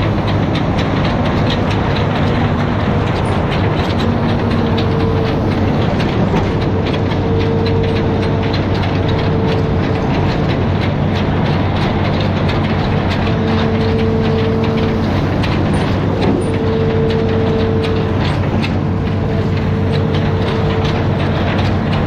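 Amphibious excavator working: a steady diesel engine drone with a hydraulic whine that comes and goes every few seconds, over continual metallic clatter.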